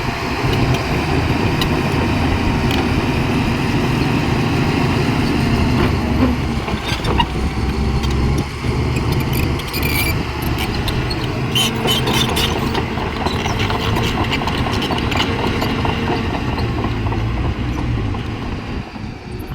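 Bulldozer's diesel engine running steadily under load as it pushes soil, with scattered sharp clicks in the middle.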